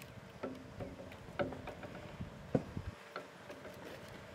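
Eggs clicking and tapping against each other as they are picked out of a woven bamboo basket: a string of light, scattered clicks, several a second at times.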